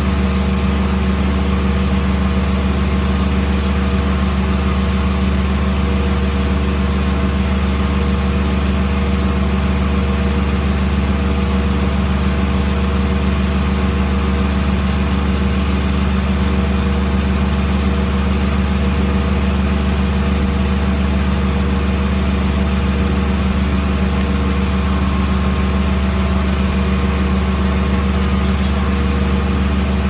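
Engine powering a Foley Belsaw M-14 circle sawmill running steadily at constant speed, the saw spinning without cutting.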